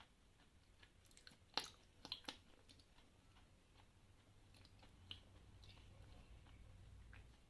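A person quietly chewing a piece of Khrapovsky eating chalk, the grains giving a few faint crunches between the teeth, the clearest three coming in quick succession between about one and a half and two and a half seconds in.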